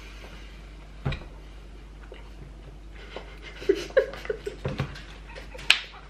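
Quiet laughter in short bursts starting about three seconds in, with a single knock about a second in and a sharp click near the end.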